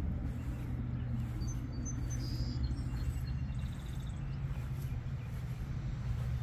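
A steady low rumble with a constant low hum, and a few faint short bird chirps between about one and a half and three and a half seconds in.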